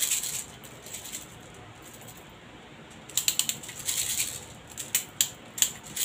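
Airsoft BBs clicking and rattling as they are loaded into the magazine of a Novritsch SSP-18 gas blowback pistol. Quick clusters of small clicks come at the start and again about three seconds in, then single clicks about every half second near the end.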